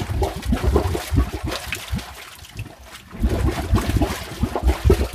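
Methane gas leaking from underground, bubbling and gurgling up through water in irregular glugs, in two spells with a short lull about two seconds in.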